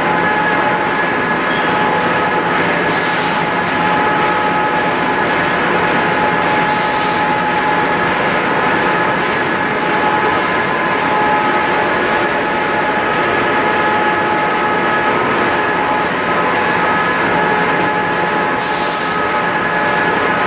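Wood pellet production line machinery running: a steady loud din with several constant high tones over a broad rumble. Short bursts of hiss come three times, about three, seven and nineteen seconds in.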